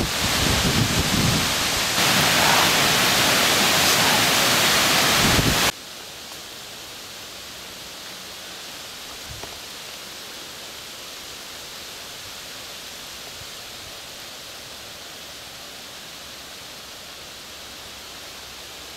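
Strong gusting wind blowing hard across the microphone with low buffeting, cut off abruptly about six seconds in. After that, a much quieter, steady hiss of wind.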